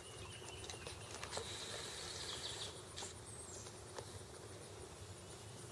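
Outdoor ambience: a steady hiss with a few sharp ticks and some short, high chirps, one falling in pitch about three seconds in.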